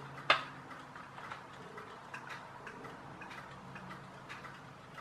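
Small plastic clicks and ticks from a toy RC tank's plastic gearbox casing being handled and its halves eased apart, with one sharp, louder click about a third of a second in.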